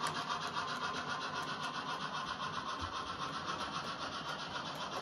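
An On30 model steam locomotive pulling cars along the track: a steady whirring, rubbing running noise from motor and wheels on the rails, with a fast, even ticking.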